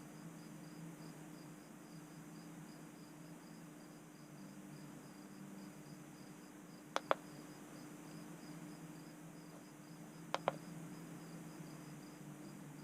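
Crickets chirping steadily in a fast even pulse over a low hum, with two sharp double clicks, about seven and ten and a half seconds in, of buttons being pressed on a handheld diagnostic scan tool.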